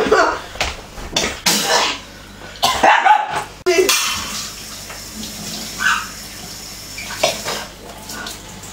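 A boy's pained gasps and breathy vocal noises after swallowing very hot chilli sauce, loud and broken in the first three seconds, then quieter.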